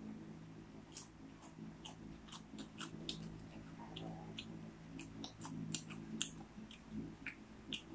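Popcorn being chewed, with many short, irregular crisp crunches, over a steady low hum.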